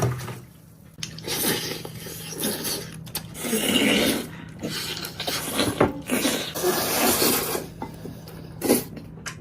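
Cookware being handled: irregular scraping and clattering of utensils against a pot as food is dished out, over a faint steady low hum.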